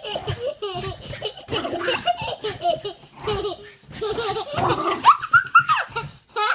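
Toddler laughing hard, in repeated short bursts, with one longer rising-and-falling call about five seconds in.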